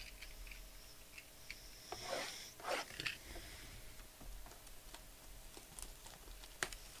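Thin plastic shrink wrap crinkling and tearing as it is pulled off a sealed trading-card box, amid light clicks and taps of the cardboard box being handled. The crinkling is loudest about two to three seconds in, and a single sharp click comes near the end.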